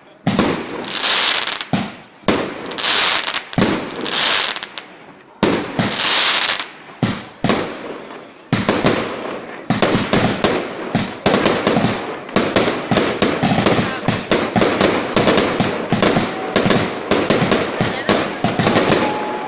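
Fireworks exploding: separate bangs every second or two, each trailing off in crackle, then from about eight seconds in a dense, rapid barrage of bangs.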